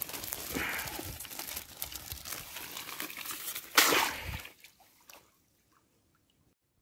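A wire-hooped keepnet full of roach brushing through bankside grass, then dropped into the pond with one loud splash a little under four seconds in, followed by brief sloshing.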